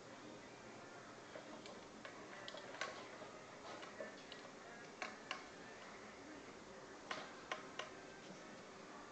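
Small dog licking the last of its food from a stainless steel bowl, with faint licking and about nine irregular sharp metallic clicks as the bowl and its collar tag knock.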